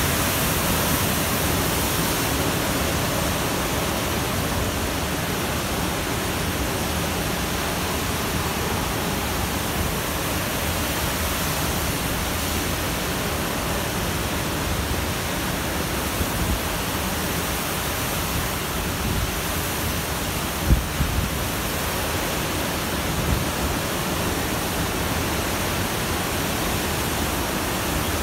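Cyclone wind and heavy rain: a steady roar of rushing noise, with a few brief low thumps about three-quarters of the way through.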